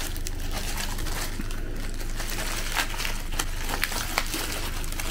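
Clear plastic packaging bag crinkling and crackling as it is handled, in irregular sharp crackles, over a low steady hum.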